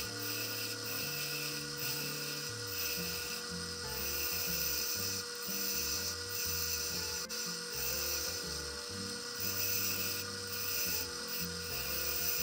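Wood lathe spinning a pen blank on a mandrel while a hand-held turning tool cuts it: a steady motor whine under a hiss of cutting that swells and fades as the tool works along the blank.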